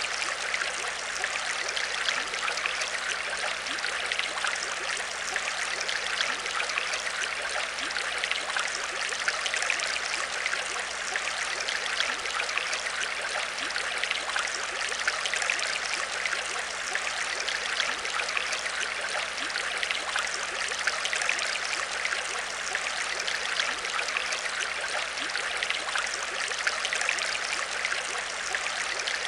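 Aquarium water trickling and splashing steadily, with a faint steady hum underneath.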